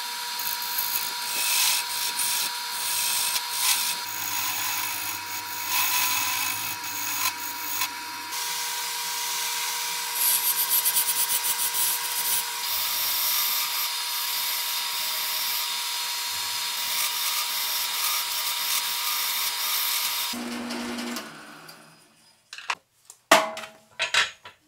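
A turning tool cutting a spinning segmented plywood-and-walnut bowl on a wood lathe: a loud, dense hiss of shavings with a steady whine under it. The cutting stops about 20 seconds in and the sound fades out, followed by a few sharp knocks near the end.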